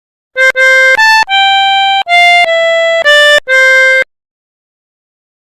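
Pianika (melodica) playing a short telolet bus-horn tune: two low notes, a leap up, then a stepwise fall back to the starting note, about eight notes in all, stopping about four seconds in.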